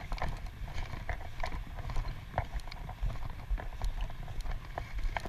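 Wind rumbling on an action camera's microphone, with irregular light crunches of footsteps in snow, about two a second.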